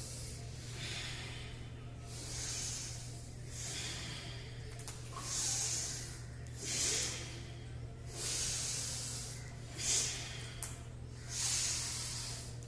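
A person breathing in and out hard and audibly in a paced rhythm, about one breath every second and a half, with inhales and exhales matched to repeated yoga stretches. A steady low hum runs underneath.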